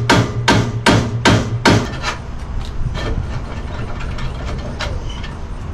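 Hand work on a metal miter saw stand: a run of regular sharp metallic knocks, about three a second, over a low hum, stopping about two seconds in, followed by a few scattered clanks as the stand's parts are handled.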